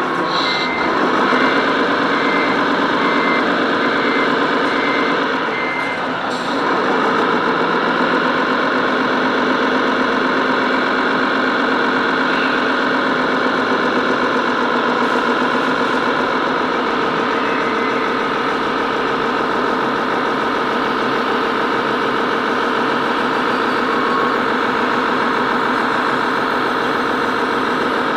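Radio-controlled model truck running, heard from a camera mounted on it: a steady engine-like hum with motor whine that rises briefly about a second in. A series of high, evenly spaced beeps, like reversing beeps, sounds over it for the first six seconds or so.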